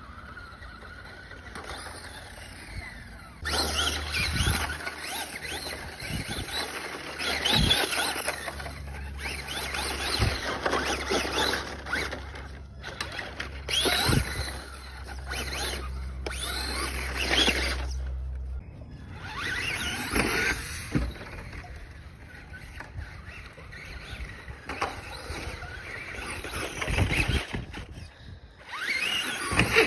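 Radio-controlled monster truck driving on dirt and mud, its motor whining up and down in repeated bursts as it speeds up and slows, starting a few seconds in.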